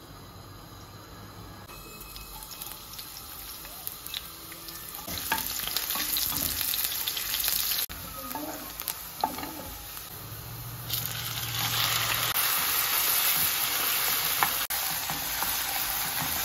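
Sliced onion and then raw chicken strips frying in oil in a non-stick pan, sizzling as they are stirred with a wooden spatula that knocks against the pan a few times. The sizzle starts faint and grows louder partway through.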